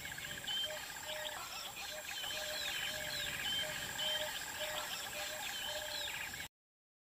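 Small birds chirping and whistling in short repeated calls over a steady insect trill. The sound cuts off suddenly about six and a half seconds in.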